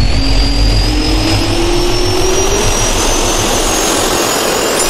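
Jet engine sound effect spooling up: a turbine whine rising steadily in pitch over a loud rush of air.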